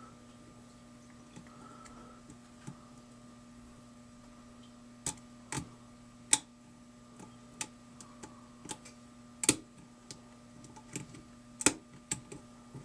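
A lock pick clicking on the pin stacks in the keyway of an American 1100-series padlock: a dozen or so small sharp ticks at irregular intervals, most of them in the second half, over a steady low hum.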